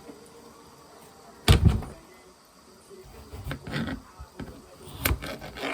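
Kitchen handling noises: two heavy knocks close together, then a run of lighter clatters and knocks, as of cookware and utensils being set down and moved.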